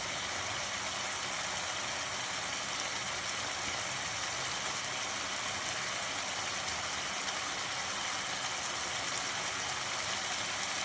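Chicken frying in ghee in a kadhai, giving a steady sizzle: its water has cooked off and the ghee is separating.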